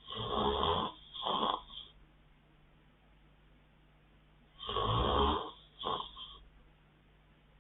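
A man snoring in his sleep: two snores about four and a half seconds apart, each a long snore of nearly a second followed at once by a shorter one.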